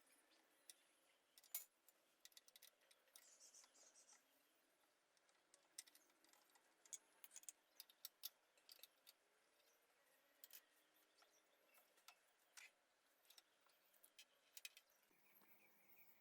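Near silence: faint room tone with scattered light clicks and taps at irregular intervals.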